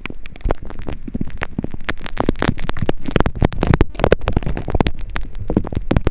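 Hard hurricane rain driven by gusting wind: a dense, irregular crackle of drops striking close to the microphone over a low rumble of wind.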